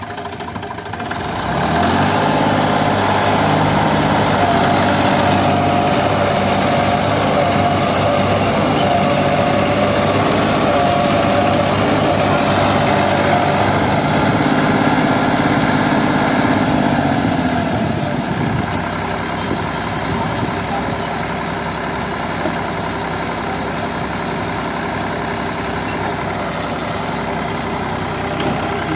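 Massey Ferguson 7250 tractor's three-cylinder diesel engine revving up about a second and a half in and held at high revs under load as the tractor strains to pull out of mud, then dropping back to idle a little past halfway.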